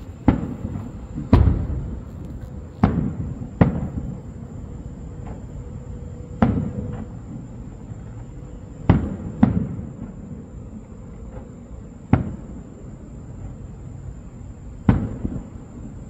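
Aerial firework shells bursting: about nine booms at uneven intervals, each trailing off in a short echoing rumble.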